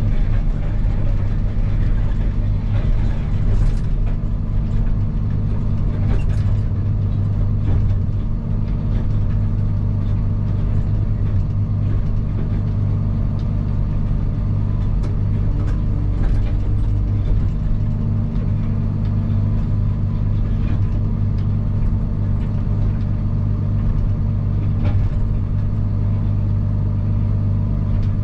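Diesel engine of a Case C-series motor grader running steadily at working speed, with a few faint clicks and knocks over it.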